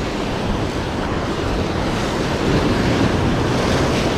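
Ocean surf breaking and washing against the boulders of a rock jetty, a steady rush that swells a little about two and a half seconds in, with wind buffeting the microphone.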